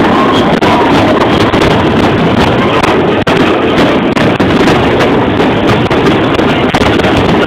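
Fireworks display in a continuous barrage: shells launching and bursting so close together that the bangs run into one unbroken loud noise.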